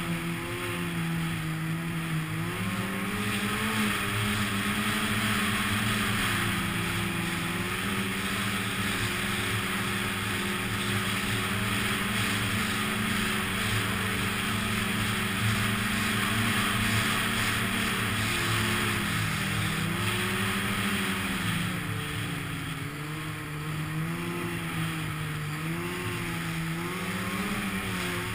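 Snowmobile engine running under way, its pitch rising and falling repeatedly with the throttle, over a steady hiss.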